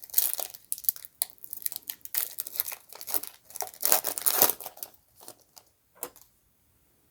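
Wrapper of a 2018 Topps Series 1 baseball card pack being torn open and crinkled: a run of rips and rustles that stops about five seconds in, followed by a few short, softer rustles.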